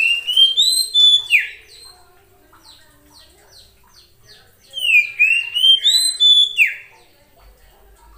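Oriental magpie-robin (kacer) singing two loud phrases about four seconds apart. Each is a run of clear whistled notes stepping up in pitch and ending in a quick downward slur, with softer chirps between the phrases.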